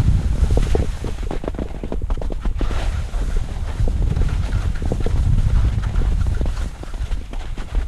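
Skis scraping and clattering over lumpy spring snow in a run of short, irregular knocks, with wind rumbling on the microphone.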